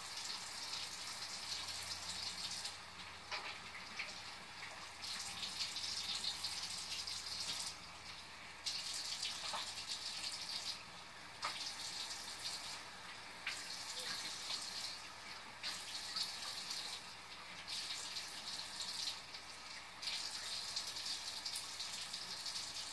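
Bathroom sink tap running into the basin while someone washes their face: hands catch water from the stream and splash it onto the face. The rush of water drops away briefly every couple of seconds.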